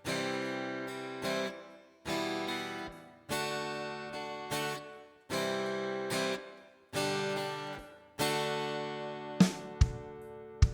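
Background music: acoustic guitar strumming slow chords, each left to ring and fade, with a couple of sharp percussive hits near the end.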